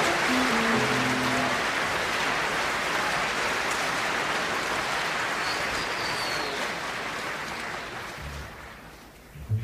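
Theatre audience applauding: dense, even clapping that fades out over the last couple of seconds.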